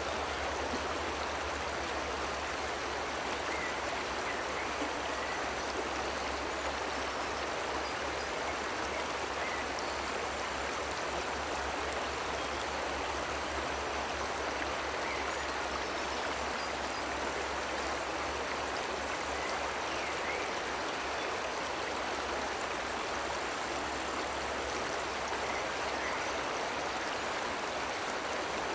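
Waterfall water cascading and rushing over rocks, a steady, even rush with no break.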